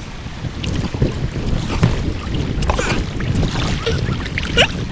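Wind rumbling on the microphone over the light splash and drip of kayak paddle strokes on the river.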